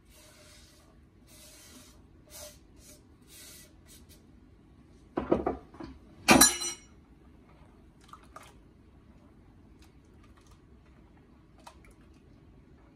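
Chopped green onions brushed off a wooden cutting board into a glass bowl, a few short rustling scrapes, then a metal ladle knocking and clinking against the glass bowl twice, the second clink ringing, followed by faint taps as it stirs the pancake batter.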